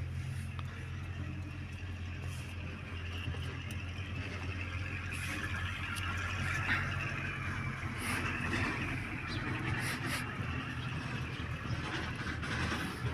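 A motor running steadily with a low hum, with scattered light clicks and rustling over it.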